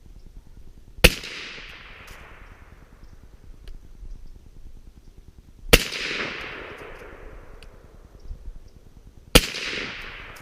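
.300 Blackout rifle fired three times through an AAC 30-caliber suppressor with a 150-grain load: three single shots about four seconds apart, each a sharp crack followed by an echo that fades over a second or so.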